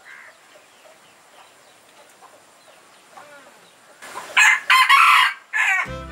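Red jungle fowl rooster crowing once, about four seconds in: a short, loud crow broken into three parts. Faint bird calls come before it, and music starts right at the end.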